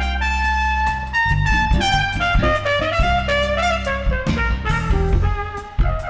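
Flugelhorn playing a jazz solo line, a long held note at first and then a moving melody, over a band with bass and a drum kit.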